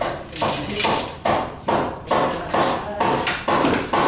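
Rhythmic knocking: evenly spaced sharp strikes, about two and a half a second, each dying away quickly.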